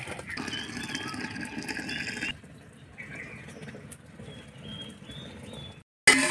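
Hot date-palm juice poured from a large aluminium wok into an aluminium pot, a steady pour that splashes loudly for about two seconds and then goes on more softly. Near the end a metal plate is set on the pot as a lid with a loud clank.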